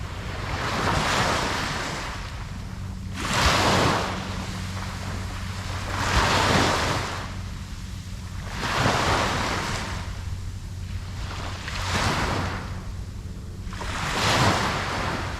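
Ocean waves breaking and washing ashore, surging about every two and a half to three seconds, six times, over a steady low hum.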